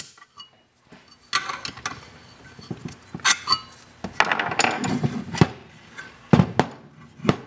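Irregular clicks, knocks and scraping of metal and plastic parts as a variable frequency drive is taken apart, its circuit-board chassis lifted out of the aluminium heat-sink housing. A few sharper knocks come in the second half.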